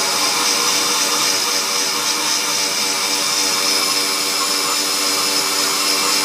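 Electric countertop blender motor running steadily at speed, mixing a milky liquid in its plastic jar.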